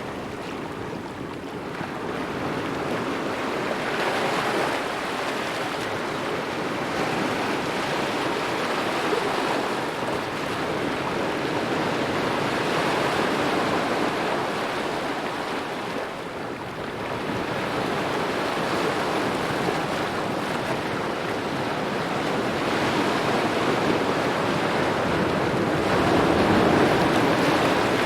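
Small waves lapping at the shore, an even wash of water noise that swells and ebbs slowly every few seconds.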